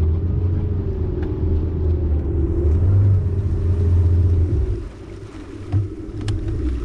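A bass boat's motor running with a steady rumble and a slowly wavering hum. It drops off sharply about five seconds in, then picks up again near the end.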